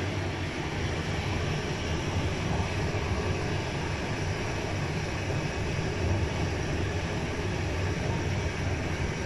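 Train running along the track: a steady low rumble with rolling noise.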